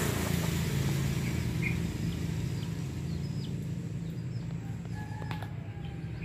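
A steady low motor hum, a little louder at the start, with a few faint bird chirps over it.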